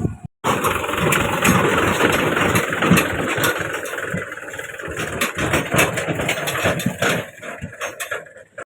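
Diesel engine of heavy machinery running, with dense clattering and many sharp knocks over it. The sound starts abruptly after a brief gap and breaks off just before the end.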